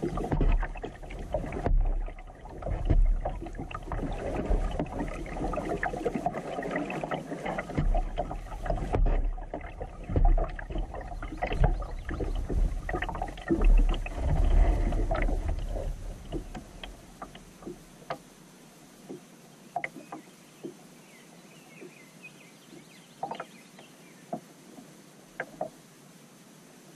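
Kayak being paddled on calm water: irregular splashing and knocks from the paddle strokes, with heavy low rumbling on the microphone, for about the first 17 seconds. After that it goes much quieter, leaving only scattered drips and light taps.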